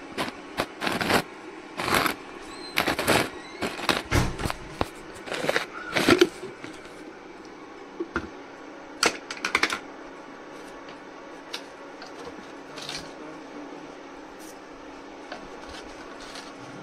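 Spoon clicking and tapping against a salt container and cooking pot as salt is spooned into the meat: a quick run of clicks over the first seven seconds, then a few more around nine to ten seconds.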